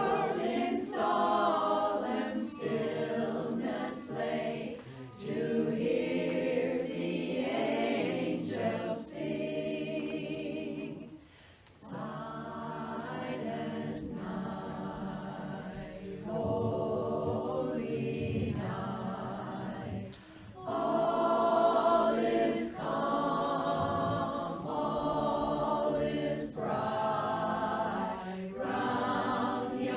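Women's barbershop chorus singing a cappella in close harmony, in phrases with two short breath breaks, about a third and two-thirds of the way through.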